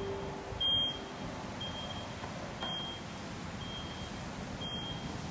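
Short high-pitched warning beeps, about one a second, from a powered tailgate lift as the tailgate closes, over a low steady hum.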